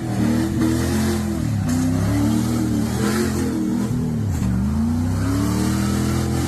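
A 4x4 vehicle's engine revving up and down over and over, its pitch rising and falling every second or so.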